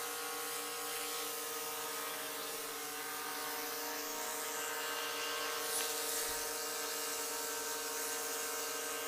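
DJI Mavic 3 quadcopter hovering: a steady propeller buzz made of several held pitches.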